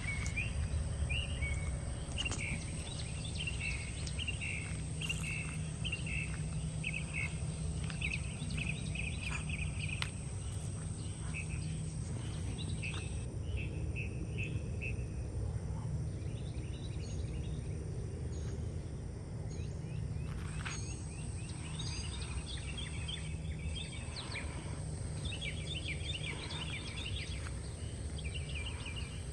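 Birds chirping in short, repeated calls over a steady low rumble, with the chirping thinning out about halfway through before picking up again.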